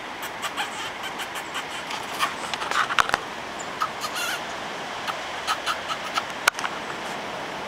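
Plain chachalacas calling from the brush: a long run of short, clucking notes, several birds overlapping.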